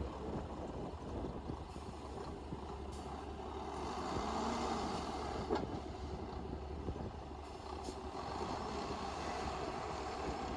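Komatsu D58P bulldozer's diesel engine running steadily under work, swelling a little about four seconds in, with one sharp click near the middle.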